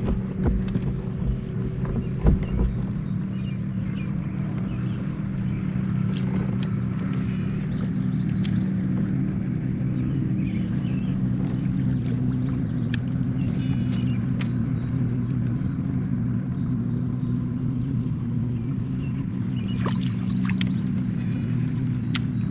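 A boat motor running steadily with an even, low hum, with a few faint ticks over it.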